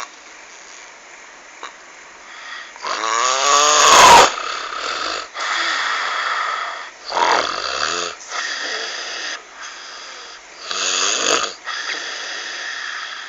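A person snoring with a croaky, frog-like rasp. There are three big snores about four seconds apart, the first the loudest, with quieter breathing noise between them.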